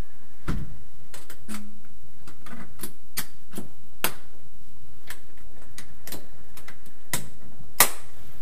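Irregular light clicks and knocks, about a dozen, with a duller thud about half a second in and the sharpest click near the end: the lid and fastening clips of a bag-fed wood pellet container being handled.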